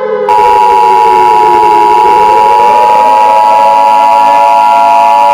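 Emergency alert sound effect: a steady high alert tone held throughout, over a siren wail that falls in pitch for about two seconds and then rises again.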